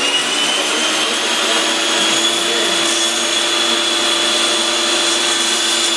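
Bosch REAXX table saw running at full speed after start-up: a steady motor whine with a high, unchanging tone.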